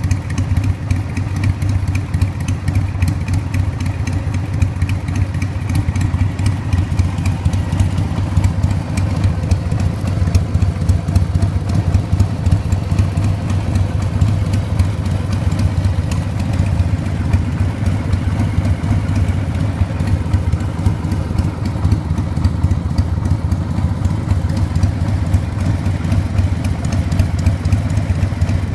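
1992 Harley-Davidson XLH1200 Sportster's 1200 cc Evolution V-twin idling steadily through its genuine Harley-Davidson optional silencers, with a fast, even pulsing exhaust beat.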